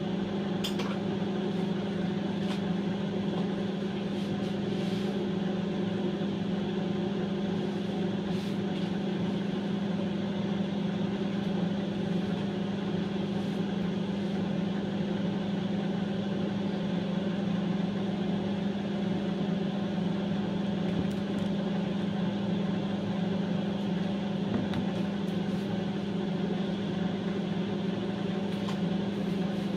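Steady mechanical hum with a strong constant low drone, unchanging throughout, with a few faint clicks.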